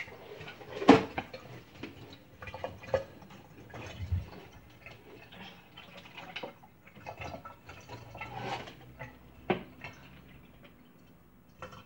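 Dishes being handled in a kitchen sink: irregular clinks and knocks, the loudest about a second in and another sharp one near the end.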